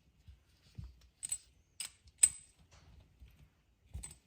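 A few light metallic clicks and clinks of a wrench against the hose fittings as the air chuck is tightened snug, the last one sharpest with a brief ring.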